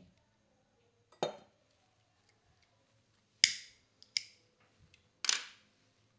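Disposable lighter struck twice, two crisp clicks a little under a second apart, as it lights a small brass lamp's wick. A duller knock comes about a second in, and a louder clatter near the end as the plastic lighter is put down on the wooden table.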